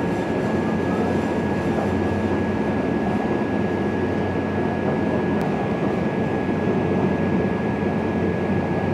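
Steady running noise heard inside a moving Class 345 (Bombardier Aventra) electric train carriage: the rumble of wheels on rails and the car body, with a thin, steady high tone above it.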